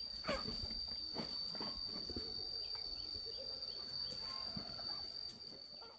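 An insect droning at one steady high pitch, with scattered clicks and knocks; it fades out near the end.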